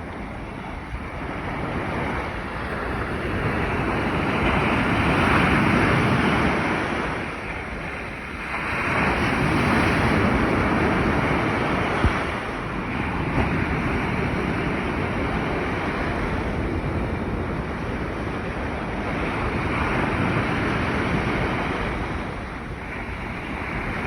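Gulf of Mexico surf breaking and washing up a sandy beach. It is a continuous rushing wash that swells to loud peaks about five and ten seconds in, then eases off and surges again.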